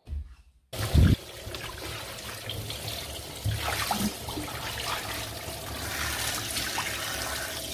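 Bath tap running into an empty bathtub, water splashing on the tub floor and over a hand held in the stream. It starts under a second in, with a short loud thump just after.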